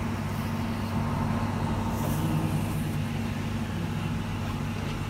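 Pressure-test machine's pump running with a steady low hum, forcing water into a plastic push-fit pipe section as the pressure climbs past 40 bar toward bursting point.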